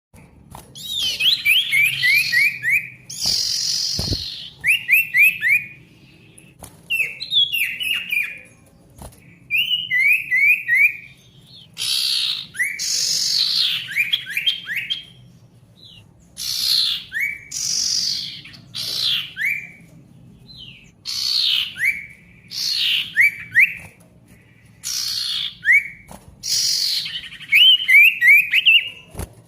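Male sirtu songbird singing: phrases of quick, repeated downward-slurred whistled notes alternating with harsher, rasping calls, with short pauses between phrases. A single knock about four seconds in, over a faint low hum.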